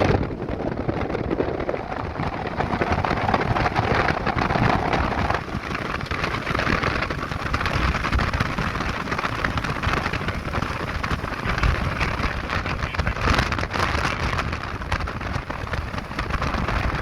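Steady road and wind noise inside a moving truck cab: an even hiss of tyres and airflow with the engine underneath.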